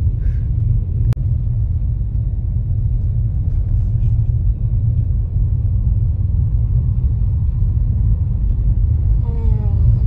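Low, steady road and engine rumble inside a car's cabin as it creeps along a snow-covered highway. A single sharp click about a second in.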